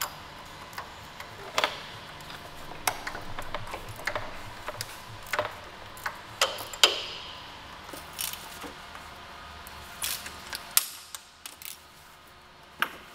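Hand tools clinking against steel as bolts are undone on a vehicle: irregular sharp metallic clicks and taps, some ringing briefly.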